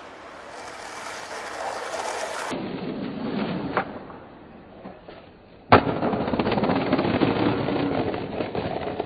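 Skateboard: wheels rolling, a sharp pop of the tail a little before halfway, then a loud landing slam about two-thirds of the way through. After the landing the wheels roll on over brick paving.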